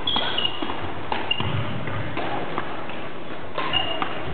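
Badminton rackets striking shuttlecocks, sharp hits a fraction of a second to a second apart, echoing in a large sports hall. Short high squeaks of sports shoes on the wooden floor come near the start, about a second in and near the end, over faint voices.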